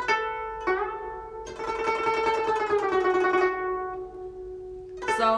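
Guzheng played by plucking: two notes, the second sliding up into pitch as the string is pressed, then a rapid run of repeated plucks on one note lasting about two seconds, and another pluck near the end. It is the so–mi phrase of the piece, played as a teaching demonstration.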